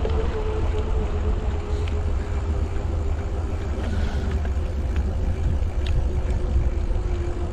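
Wind buffeting the microphone of a camera on a moving bicycle, a heavy low rumble, with a steady hum from the rolling mountain bike that slowly falls in pitch.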